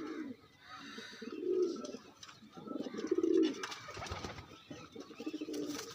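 Domestic pigeons cooing: two low, pulsing coos about one and a half and three seconds in, with fainter cooing and a few soft clicks after.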